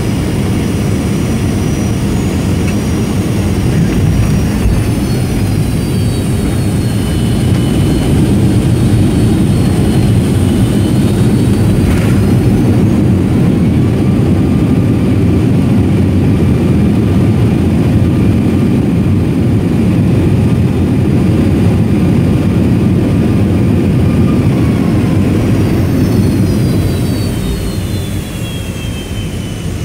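Boeing 757-200 with Rolls-Royce RB211 engines, heard from a seat beside the wing while rolling on the taxiway after landing: a loud, steady rumble with a high engine whine. The whine falls in pitch a few seconds in, rises briefly about twelve seconds in, and falls again near the end as the rumble eases.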